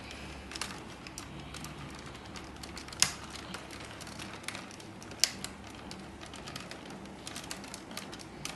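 Plastic clicking and rattling as a battery pack is fitted into a toy RC monster truck, many small clicks with two sharp snaps about three and five seconds in.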